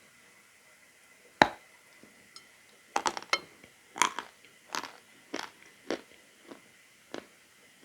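Someone biting a lump of chalk, with one loud crack about a second and a half in. A quick cluster of crunches follows, then crunchy chewing at about one crunch every half second, getting softer near the end.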